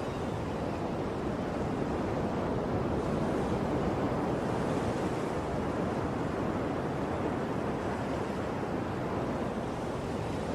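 Ocean surf: a continuous wash of breaking waves, swelling slightly in the middle.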